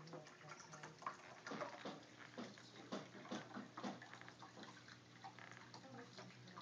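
Faint trickle of a pet drinking fountain, with irregular drips and splashes as a cat bats at the stream, over a steady low hum.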